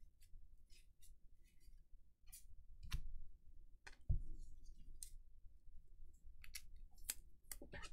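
Baseball cards being handled and set down on a table: scattered light clicks and ticks of card stock, with two louder knocks about three and four seconds in.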